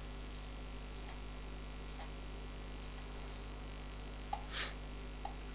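Steady low electrical mains hum in the recording chain. A few faint clicks sit on top, with one brief, louder noisy puff about four and a half seconds in.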